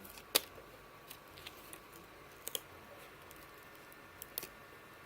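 A few sharp clicks and light taps, irregularly spaced, from hands working the laptop screen's cable connector and the tape that covers it.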